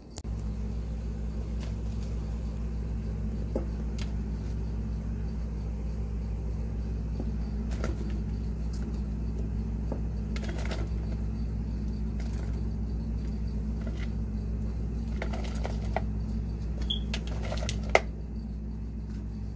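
Pot of ravioli boiling on a gas stove burner: a steady low rumble, with scattered light clicks and taps of a utensil stirring against the pot.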